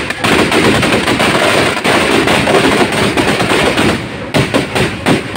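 Firecrackers packed into a burning Ravana effigy going off in a rapid, unbroken string of sharp bangs and crackles, like machine-gun fire.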